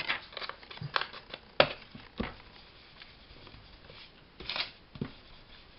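Foam ink blending tool dabbed and rubbed over a paper envelope while the paper is handled on the desk: scattered light taps and short scuffs, the sharpest tap about one and a half seconds in.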